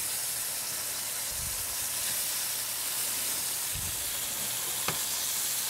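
Floured veal cutlets pan-frying in hot oil, a steady even sizzle, with a couple of faint low thuds and a small click partway through.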